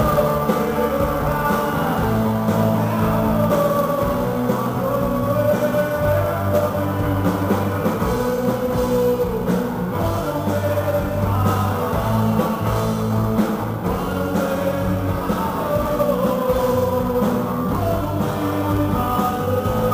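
Rock song with a lead singer over guitars and a drum kit.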